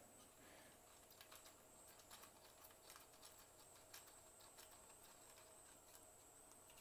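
Near silence with faint scattered small clicks as small standoffs are threaded in by hand on a Raspberry Pi board.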